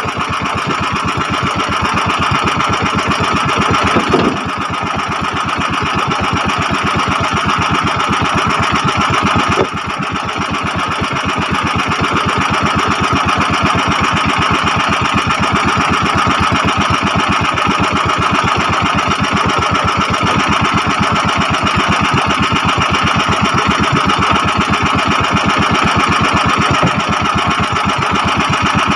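Small boat engine running steadily with a rapid, even putter. The level drops sharply about ten seconds in, then comes back up.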